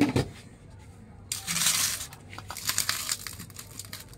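A crinkling rustle lasting under a second, followed by a run of light clicks and taps.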